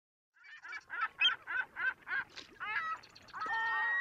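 Geese honking: a run of short, repeated honks about three a second, starting about half a second in, with a longer held note and more birds overlapping near the end, like a small flock calling.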